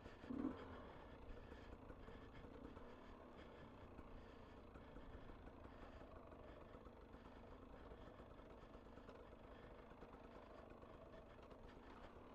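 Near silence: a faint steady low hum, with one short soft sound about half a second in.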